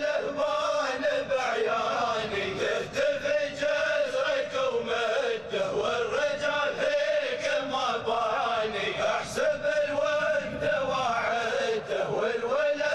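A man's voice, or men's voices, chanting a sung melody with a continuous, wavering vocal line.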